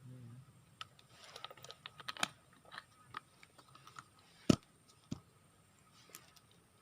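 Irregular light clicks and small knocks of fishing gear being handled, with one sharp, louder click about four and a half seconds in and a softer one just after.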